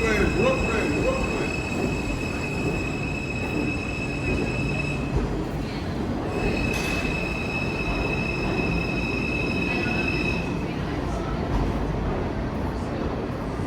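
New York City subway train running on the track, a steady rumble with a high-pitched squeal over it that drops out twice and comes back once.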